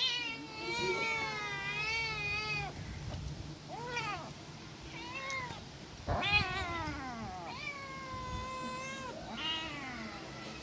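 Kittens meowing repeatedly: a string of high, wavering meows, some short and some drawn out for a second or two.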